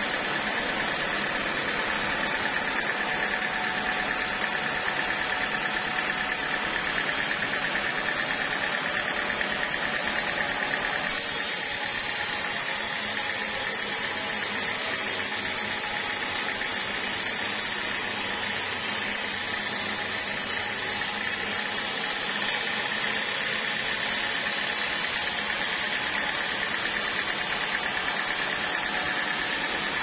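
Sawmill machinery running steadily while sawing a teak log: a constant mechanical noise with a high whine. The sound changes about a third of the way through and changes back shortly before the end.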